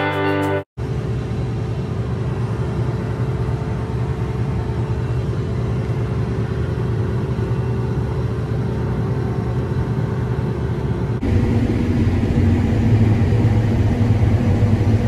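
Combine harvester running steadily while harvesting corn, a dense mechanical noise with a low hum. About 11 seconds in, a cut brings a louder machine sound with a stronger steady low hum.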